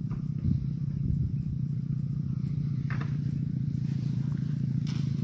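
A small engine running steadily with a low drone, with a brief rustle about three seconds in and another near the end.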